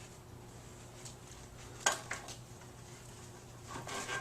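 Quiet room tone with a sharp metallic click of a hand tool about two seconds in and a fainter click just after.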